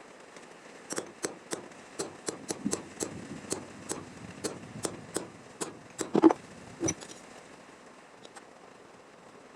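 Hammer tapping on car-body sheet metal: about a dozen sharp taps, roughly two a second, with a heavier knock near the end.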